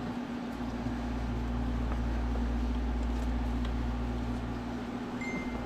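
Steady low mechanical hum with no distinct events, with a brief faint high tone near the end.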